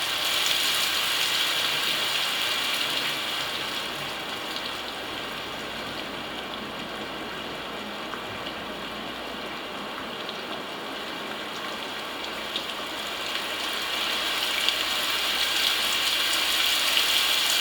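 HoMedics HDS-2000 sleep sound machine playing one of its built-in noise soundscapes: an even hiss that sinks in the middle and slowly swells back up towards the end.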